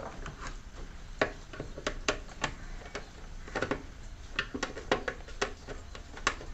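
Irregular sharp clicks and taps of a screwdriver working the screws on a mixer grinder's plastic motor base, while the grinder is being opened to check its motor windings.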